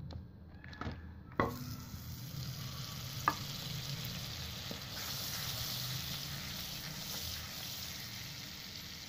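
A block of butter lands in a hot frying pan with a knock about a second and a half in, then sizzles steadily as it melts and foams, with a sharp click a couple of seconds later.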